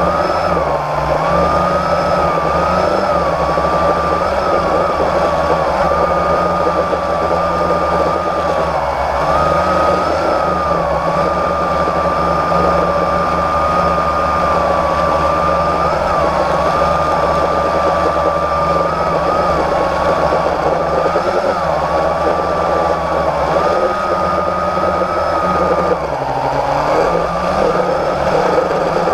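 Blade 350 QX quadcopter's brushless motors and propellers whining steadily, close up, from a camera on the drone itself. The pitch dips briefly and recovers every few seconds as the throttle changes.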